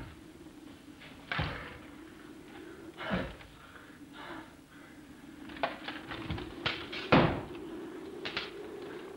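Stage sword fight: a few separate clashes and knocks of swords and scuffling feet, the loudest about seven seconds in, over a steady low hum.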